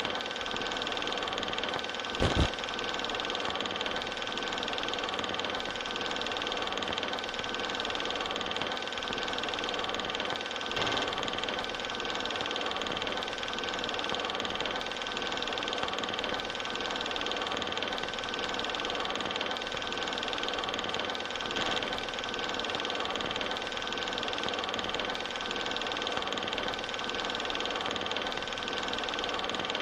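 Steady mechanical-sounding hum with several held tones over a noisy bed, broken by a sharp click about two seconds in and a fainter one near the middle.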